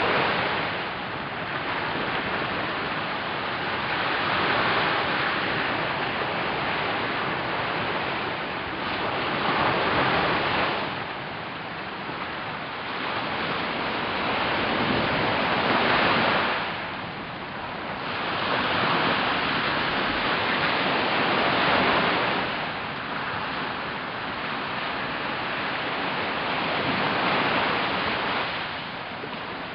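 Small sea waves breaking and washing up a sandy beach. The surf swells and eases about every five or six seconds.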